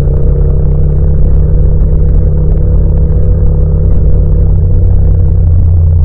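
Yamaha MT-07 (FZ-07) 689 cc parallel-twin engine running at a steady pitch under way, its exhaust recorded raw with no wind noise.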